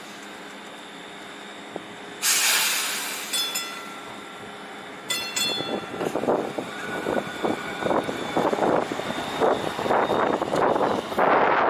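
A streetcar or light-rail train. About two seconds in comes a loud burst of air hiss, then two brief ringing tones. After that comes the irregular rumble and clatter of the car moving along the track, growing louder.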